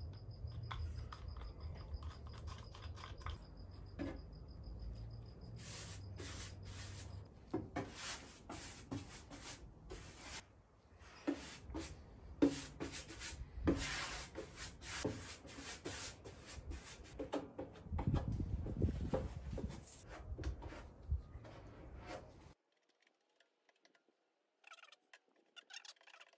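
Paintbrush strokes scraping and swishing irregularly over a sanded wooden boat hull as a liquid coat is brushed on. The brushing stops suddenly a few seconds before the end.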